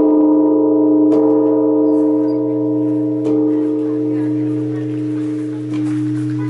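Large Japanese temple bell ringing on after a strike: a deep hum under several ringing tones, slowly fading. Three faint knocks along the way briefly lift the ringing.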